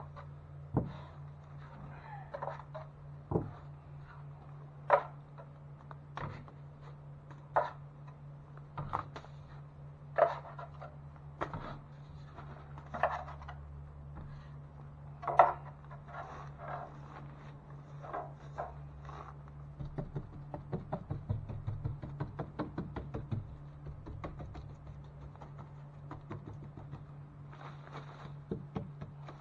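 Sharp knocks and taps, one every second or so, then a stretch of quick light ticking about two thirds through, over a steady low hum.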